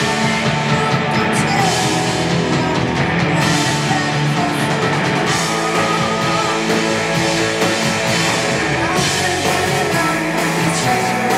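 Live punk rock band playing loud, with electric guitar and a voice singing over it.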